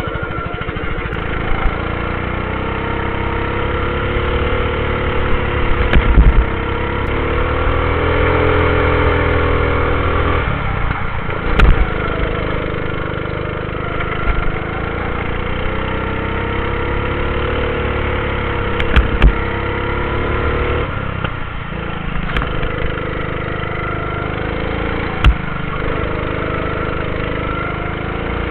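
Go-kart engine heard from on board while lapping, its note climbing as it accelerates and dropping away into the corners, several times over. A few sharp knocks cut through it along the way.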